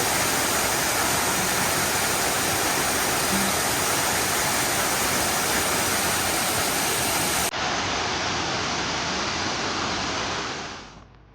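Steady rushing noise with no distinct tones. About seven and a half seconds in it cuts abruptly to a duller version, which fades out near the end.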